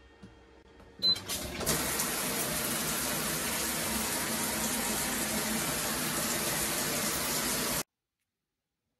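Selectronic electric shower switched on: a short high beep from the unit about a second in, then the shower head's spray hissing steadily onto the tiles, cut off abruptly near the end.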